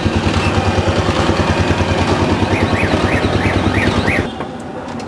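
Hand-cranked forge blower turning fast: a rapid pulsing hum with a squeak about three times a second, which stops suddenly about four seconds in.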